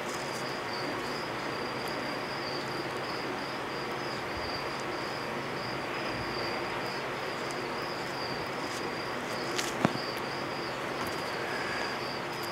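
Crickets chirping in a continuous high trill over a steady hiss, with one sharp click about ten seconds in.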